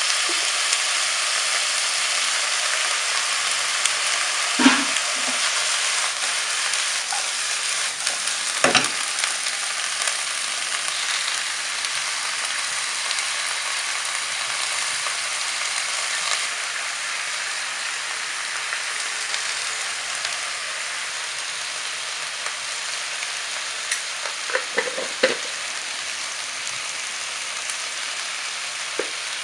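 Brussels sprouts and sliced pork frying in oil in a nonstick pan: a steady sizzling hiss that eases slightly over time. A few short knocks of a wooden spatula against the pan come through, twice early on and a cluster near the end.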